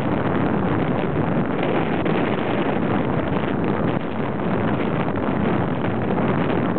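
Steady rushing wind buffeting a handlebar-mounted camera's microphone as a bicycle is ridden along a road.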